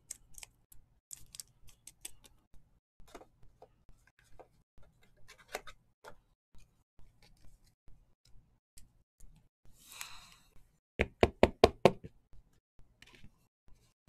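Trading cards being handled: light clicks and flicks as cards are moved through, a short rustle about ten seconds in, then a quick run of about eight loud knocks.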